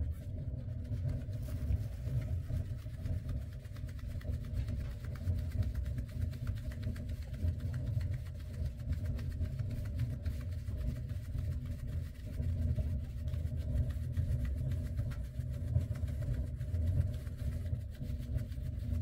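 Flour being sifted through a large round drum sieve into a metal pot: a fast, faint rasping of quick strokes over a steady low rumble that sounds like an idling engine.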